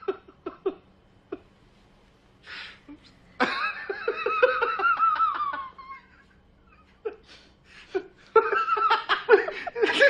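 A person laughing loudly in two long bursts of rapid 'ha-ha' pulses, the first about three seconds in and the second near the end, with a quiet gap between.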